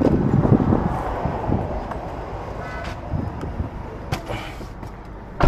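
Steady car or road-traffic rumble with a few light clicks, ending in a sharp thump.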